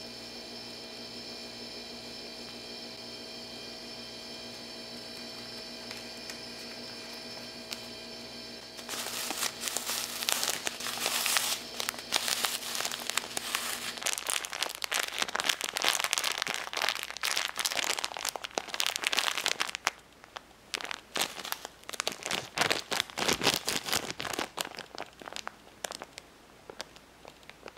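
Thin plastic bag of Popin Cookin candy powder squeezed and kneaded by hand, crinkling and crackling in quick, irregular bursts from about nine seconds in, sparser after about twenty seconds, as the damp powder is worked into crumbly dough. Before that only a steady hum made of several even tones is heard.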